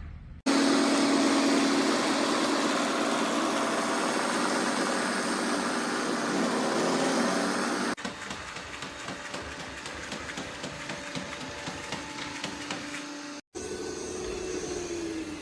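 iRobot Roomba Plus 405 robot vacuum-mop and its AutoWash dock running: a loud steady whirring hum, then quieter running after a cut about eight seconds in, and after another brief cut a steady tone that falls near the end.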